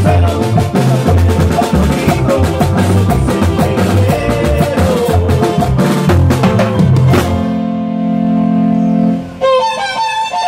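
Live band music from electronic keyboards and a drum kit playing a fast, drum-driven dance number. About seven seconds in the band stops on one long held keyboard chord, and a new keyboard melody starts near the end.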